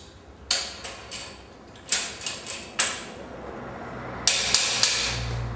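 Mallet tapping the bottom piece of tilt-and-turn window hardware into the channel of an aluminium sash. About ten sharp knocks come in three quick runs, the last run near the end.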